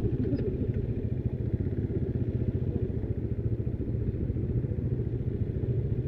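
Motorcycle engine idling steadily.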